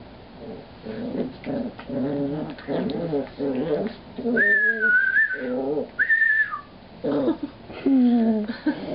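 Dog whining and moaning: a run of short, wavering calls, then two high, held whines about four and six seconds in, and a long falling moan near the end.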